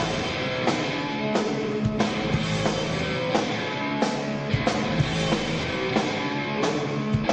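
Rock band playing live on electric guitars, bass, drum kit and keyboards, with a steady beat of sharp drum hits about every two-thirds of a second.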